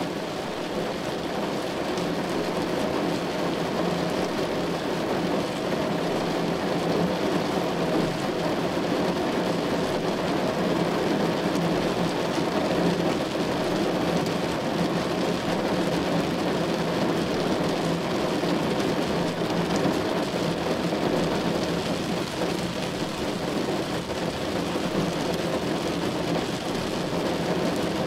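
Heavy rain falling steadily on a car, a dense, even patter that holds at the same level throughout.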